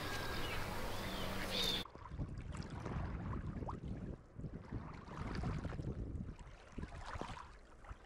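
Outdoor background noise with a steady low hum that stops abruptly about two seconds in. After that, wind rumbles on the microphone while small waves lap against shore rocks.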